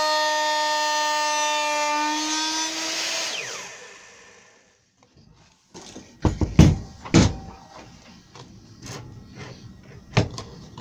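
Handheld router running at full speed with a steady high whine on the first pass of a template cut in timber, then switched off about three seconds in and spinning down with a falling whine. Several sharp knocks follow, the loudest about halfway through.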